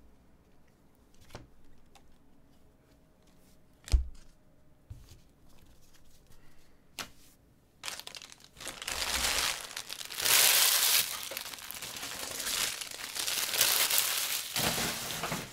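Light clicks of trading cards being handled, a single sharp thump about four seconds in, then from about halfway a long stretch of loud plastic wrapper crinkling and tearing.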